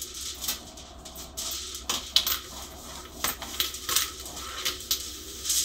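Kitchen clatter: dishes and utensils knocking and clinking as they are handled on a countertop, a string of short irregular clicks and knocks.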